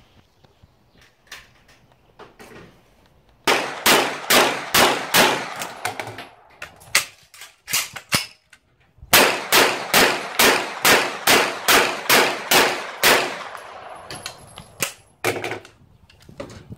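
Rapid semi-automatic gunfire from a CZ Scorpion carbine, in two strings of shots at about three a second. The first string starts a few seconds in and the second about nine seconds in, with a few scattered shots between and after. Fainter cracks are heard in the first few seconds.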